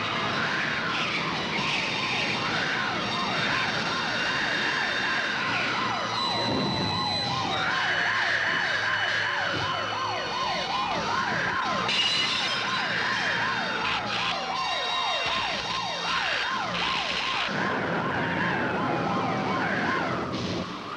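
Several emergency vehicle sirens sounding together. One wails up and down about every second or two, while another yelps rapidly, about three times a second. Now and then a long falling glide runs underneath.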